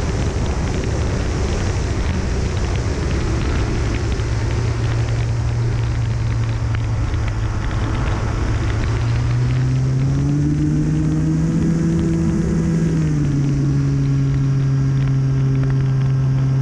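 Sunnysky 2216 1400kv brushless motor of an RC model plane running under steady power, with wind rushing over the onboard camera's microphone. The motor's drone rises in pitch about ten seconds in and eases back a little about three seconds later as the throttle changes.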